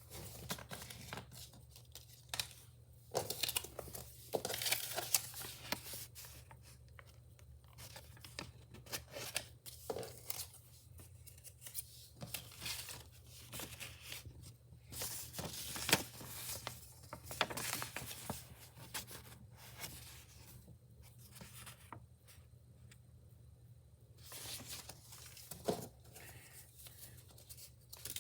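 Packaging being torn open and crinkled by hand, in irregular bursts of tearing and rustling with short pauses between them, over a faint low hum.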